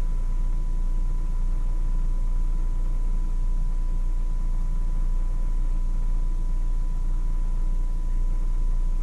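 A steady low hum with a hiss over it and a thin, constant high whine, unchanging, with no knocks or other events.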